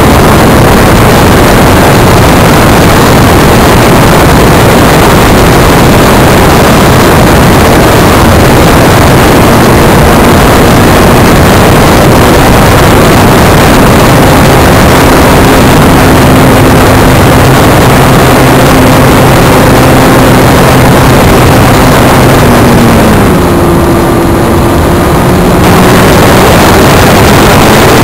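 Multiplex Magister RC model airplane in flight, heard from its onboard camera: loud, constant motor noise mixed with wind rush. About 23 seconds in the motor's pitch falls and the noise eases for a couple of seconds, then it picks up again at a lower pitch.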